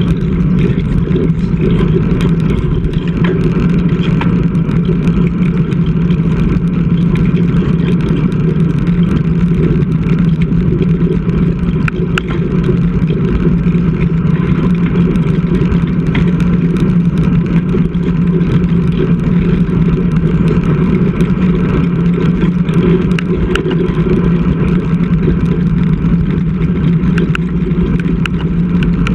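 Wind and tyre noise on a bike-mounted GoPro while a road bike rides along: a loud, steady low rumble, with a few faint clicks.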